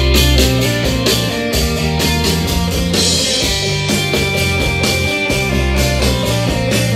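Rock-style music with guitar and a steady drum beat, a CD track played back through the Unic SAM-800 mixer and a pair of Sony hi-fi loudspeakers and recorded in the room.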